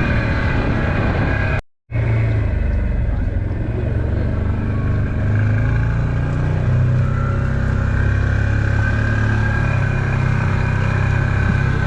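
Vehicle engine running steadily with a low rumble, heard from on board while driving. The sound cuts out for a moment about two seconds in.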